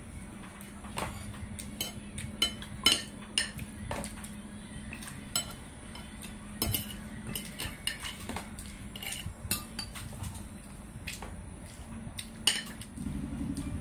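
A spoon and dishes clinking irregularly against a ceramic plate and bowl as food is served and eaten, over a steady low hum. A louder low rumble comes in near the end.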